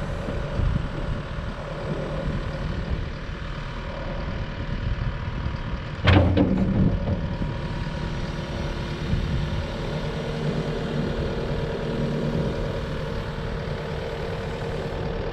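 Diesel engine of a Kubota SVL97-2 tracked skid steer running steadily, with one sudden loud clunk about six seconds in and a steady tone coming in around ten seconds.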